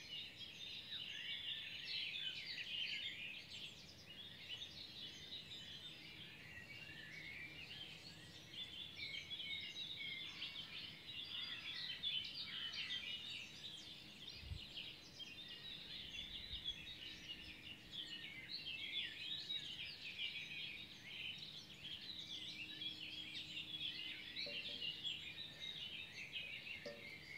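Spring dawn chorus: many songbirds singing at once, a dense, unbroken twittering of chirps and trills.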